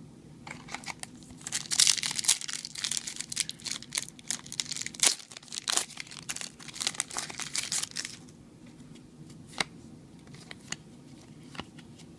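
Foil wrapper of a Yu-Gi-Oh! booster pack being torn open and crinkled: a dense crackling rustle that runs for about six seconds and then thins out to a few scattered crinkles and clicks.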